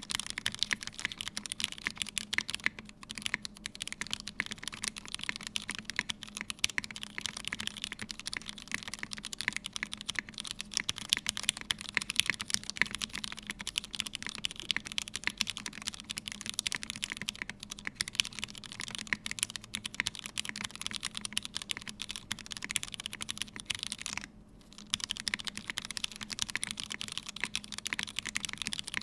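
Continuous typing on a Nixstudio Sofia mechanical keyboard with a brass plate, lubed Hyperglide Black linear switches and CRP keycaps: a dense run of keystroke clacks with one brief pause late on.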